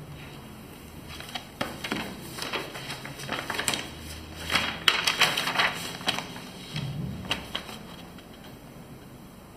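Typing on a computer keyboard: irregular runs of key clicks, busiest about halfway through and dying away near the end.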